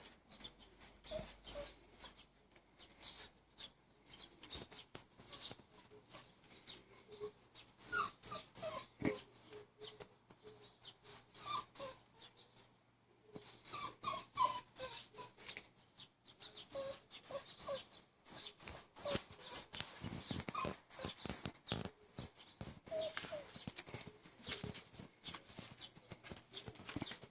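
A dog whining, with many short high-pitched squeals and yelps that come and go, among light clicks and knocks.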